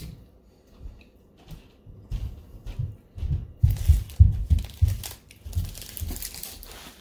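Cooked crab shell being cracked and pulled apart by hand, with crunching and crackling and dull low thumps, busiest from about two seconds in.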